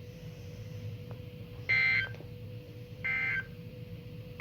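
EAS/SAME end-of-message data bursts from a weather radio's speaker: short two-tone digital chirps, each under half a second, repeating about every 1.35 s, the third starting at the very end. They mark the end of a severe thunderstorm warning. Faint static and a steady hum lie underneath.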